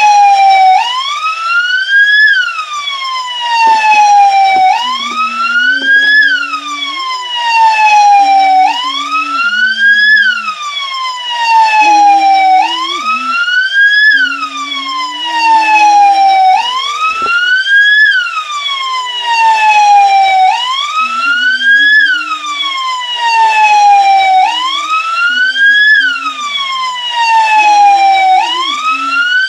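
Brazilian military police (PMDF) siren in a slow wail: each cycle rises quickly and then falls away more slowly, repeating about every four seconds.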